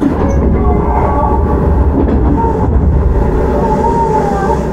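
Onboard running sound of a Tokyu 9000 series electric train: a steady rumble of wheels on rail, with a wavering whine from its early Hitachi GTO-VVVF inverter drive that comes and goes.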